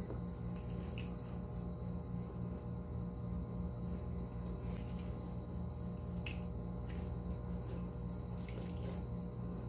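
Faint wet squishing of fingertips rubbing foam cleanser lather over the skin of the face, with a few soft clicks, over a steady low hum.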